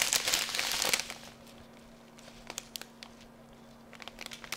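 Small plastic bags of round diamond-painting drills crinkling as they are handled for about the first second, then a few faint light clicks.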